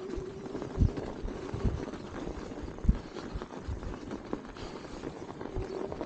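Electric bike ridden over deep snow: irregular low thumps and knocks as the bike bumps along, with a faint steady whine near the start and again near the end.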